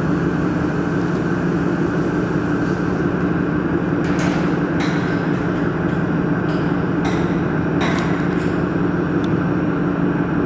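Steady machine hum of a laser welding setup, with about five short, sharp crackles or clicks scattered through the middle.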